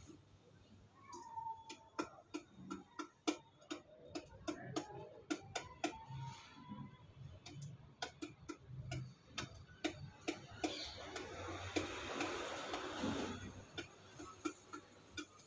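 Domestic pigeon pecking rice from a metal bowl: a run of irregular sharp clicks as its beak strikes the grains and the bowl. A stretch of hiss lasts a couple of seconds a little past the middle.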